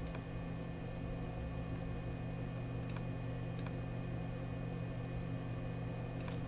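Steady low electrical hum and room noise from the recording setup, broken by four short sharp clicks at the computer: one at the start, two close together near the middle and one near the end.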